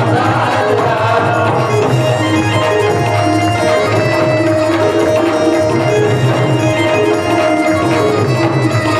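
Instrumental music between sung verses: hand drums keeping a steady, dense rhythm under a sustained reedy melody line, with no singing.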